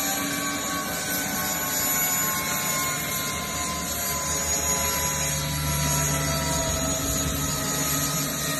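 Aérospatiale SA341F2 Gazelle helicopter's Turbomeca Astazou turboshaft winding down after landing. Its layered whine slides slowly lower in pitch while the main rotor turns slowly. A low hum joins in around the middle for a few seconds.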